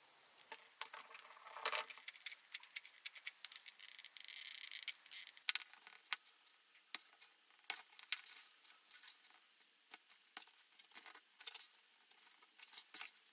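Light clicks, taps and scraping of small objects being handled on a workbench, with a brief hissing scrape about four seconds in.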